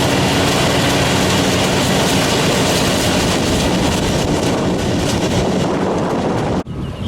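Sugarcane harvester running at work: a loud, steady mechanical din over a low engine hum. It cuts off abruptly near the end.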